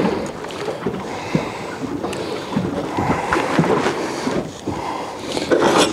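Choppy sea water lapping against the hull of a small aluminium boat, with wind on the microphone and a few light knocks.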